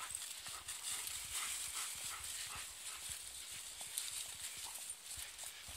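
Footsteps and a dog's paws walking through dry fallen leaves: a run of small, uneven crunches and rustles.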